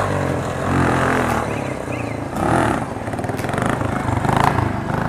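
Motorcycle engine revving as the rider pulls a wheelie, the revs rising and falling. Voices of onlookers are heard faintly at times.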